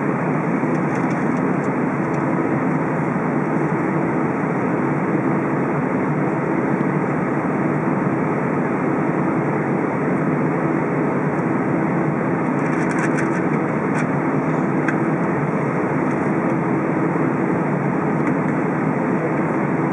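Steady cabin noise inside an Airbus A320 on the ground: the engines idling and the air conditioning running as an even roar with a faint low hum.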